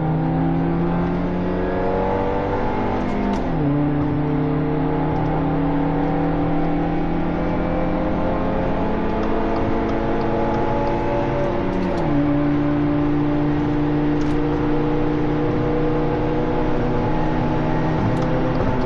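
2017 Subaru Impreza's 2.0-litre flat-four accelerating at full throttle through a straight-through muffler-delete exhaust, heard inside the closed cabin. The engine note climbs steadily, drops sharply at two upshifts (about three seconds in and again about twelve seconds in), then climbs again each time.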